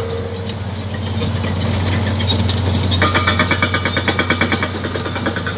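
Micropile drilling rig running, its engine droning steadily, with the rapid, even hammering of the pneumatic rock drill starting up again about three seconds in.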